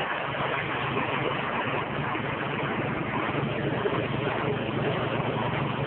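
Corn grinding mill driven by a 6.5 hp engine, running steadily: an even low hum under a dense whirring noise.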